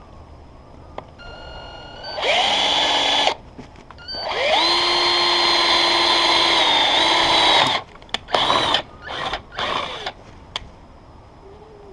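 Power drill pre-drilling screw holes in a storm door: a run of about a second, then a longer run of about three and a half seconds whose whine rises as it spins up and then holds steady, followed by three short bursts.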